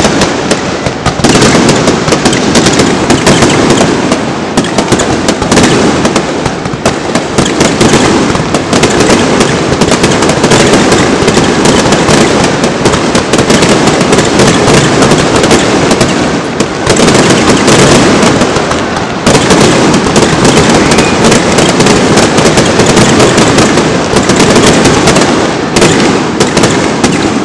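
Aerial firework shells bursting in a rapid barrage, the reports packed so closely they merge into one loud, near-continuous din, with a few brief dips.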